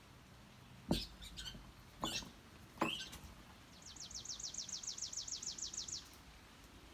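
Three sudden sharp sounds about a second apart, the first the loudest, as the feeding rats scatter. Then a small bird's rapid trill of about fifteen quick, high, down-slurred notes lasting about two seconds.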